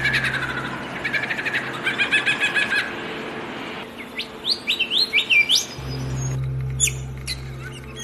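Songbirds singing: a fast run of repeated chirps for the first few seconds, then quick whistled notes sweeping up and down, and sharp high chips near the end. A low steady hum lies under the start and the end.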